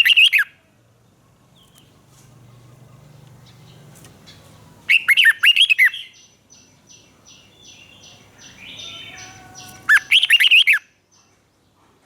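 Red-whiskered bulbul singing short, loud phrases of quick warbled notes. One phrase comes at the start, another about five seconds in and a third about ten seconds in. Fainter high calls repeat in the gaps.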